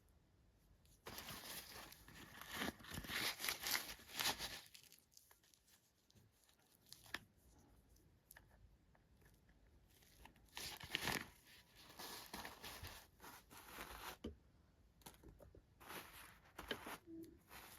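Toy packaging being torn and crinkled by hand in three spells of tearing and rustling, with small clicks and quiet gaps between.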